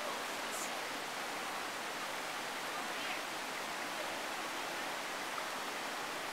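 Steady rush of a rocky river flowing over boulders and shallow riffles.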